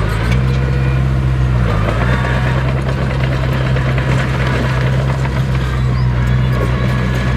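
Heavy diesel engine of earthmoving machinery running under load, a deep steady drone that shifts slightly in pitch about two seconds in.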